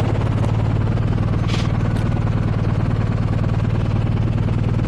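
Motorcycle engine running at a steady speed while riding, a constant low hum.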